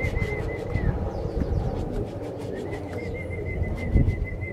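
Domestic pigeons cooing at the loft. Twice, a high wavering whistle-like tone is held for a couple of seconds, and there is a single low thump near the end.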